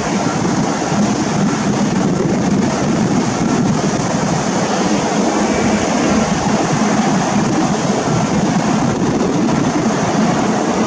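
Diesel engines of a Caterpillar 637E twin-engine motor scraper running steadily as the machine travels across the cut.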